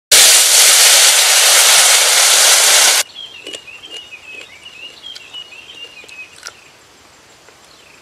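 A loud, steady hiss for about three seconds that cuts off suddenly. Then a bird's wavering, chirping song and a few crisp crunches of fried diving beetles being chewed.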